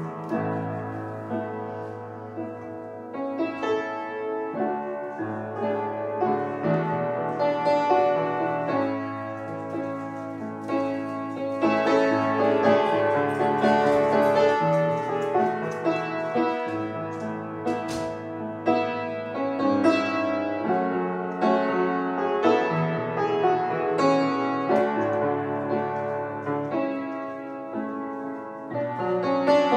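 Upright piano played solo from sheet music: a gentle, flowing instrumental piece of sustained chords and melody, swelling a little about twelve seconds in.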